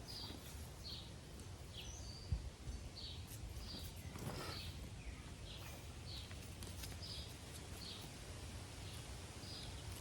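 A small bird chirping over and over outdoors, short high chirps about one to two a second. There is one short knock a couple of seconds in.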